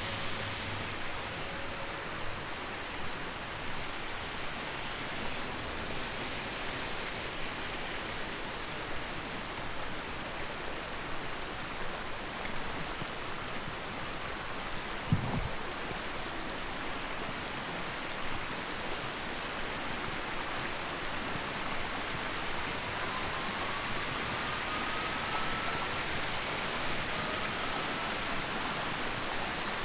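Steady, even rushing outdoor noise with no speech, broken by a single dull thump about halfway through; faint tones glide upward near the end.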